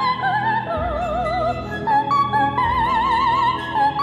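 Operatic soprano singing a line of held high notes with wide vibrato over orchestral accompaniment, the notes climbing toward the end.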